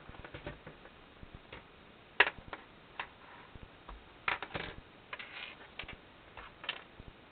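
Irregular clicks and taps of small plastic and electronic parts being handled, with a sharp click about two seconds in and a cluster of taps around the middle.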